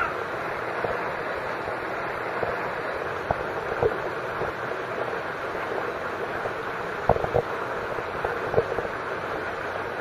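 Steady rushing noise of water with wind on the microphone, broken by a few short splashes as the animals move in the pool, the loudest about seven seconds in.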